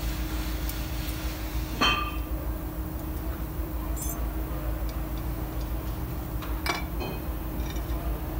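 Rear drum-brake shoes and spring hardware clinking as they are handled: one sharp ringing metallic clink about two seconds in, another near seven seconds, and a few lighter ticks, over a steady low hum.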